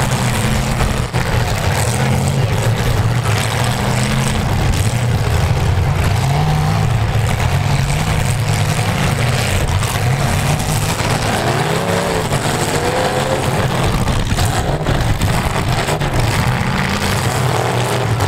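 V8 engines of full-size demolition derby cars running and revving, their pitch rising and falling again and again over a constant noisy din.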